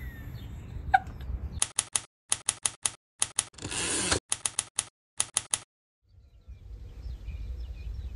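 Typewriter sound effect: quick runs of key clacks, about six or seven a second, with a brief rushing noise in the middle. A low steady rumble takes over near the end.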